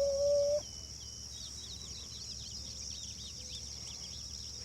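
A single short held note for under a second at the start, then the steady chirring of many insects, dense rapid high chirps over an even high hiss.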